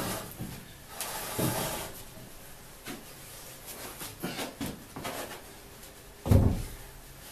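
Wooden knocks and bumps as heavy 4x6 pine beams are handled on a workbench, with a sharp knock about a second in and a loud, heavy thud near the end as a beam is set down.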